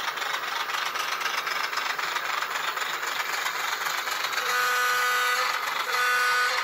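ESU LokSound V5 Nano decoder playing a Baldwin VO-1000 diesel switcher's engine sound through a tiny 8x12 mm sugar cube speaker in the moving N scale model. Near the end the horn sounds twice, a longer blast and then a shorter one.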